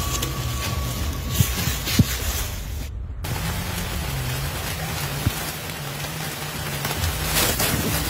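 Background music with low held notes that step in pitch, over a steady hiss, which cuts out briefly about three seconds in.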